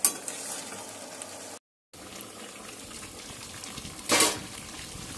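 Chicken curry simmering in the juices the meat has released, a steady bubbling hiss from the pan. The sound cuts out briefly about one and a half seconds in. About four seconds in there is a short, loud burst of hiss.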